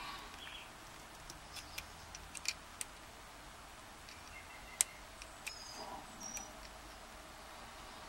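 A thin steel blade prying at a stubborn circlip on a brass padlock cylinder plug: faint scattered metallic clicks and scrapes with a few short high squeaks, the sharpest click about five seconds in.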